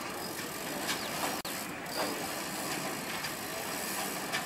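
Steady mechanical ratcheting clatter, with a few short falling squeals over it.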